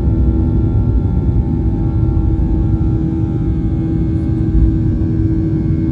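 Boeing 737-800's CFM56 turbofan engine heard from inside the cabin as the airliner rolls along the runway: a steady low rumble with a hum of steady tones over it.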